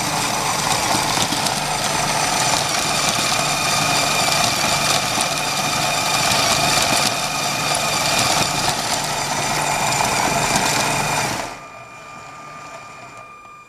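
LEGO Powered Up motor driving a plastic conveyor-belt terrain under a Technic model car: a steady whirring clatter of plastic gears, belt links and bumps. It cuts off sharply near the end, leaving only a faint steady high tone.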